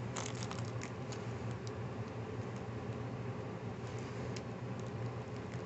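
Faint scattered clicks of small plastic packets of diamond-painting drills being handled, a cluster in the first second and a few more about four seconds in, over a steady low hum.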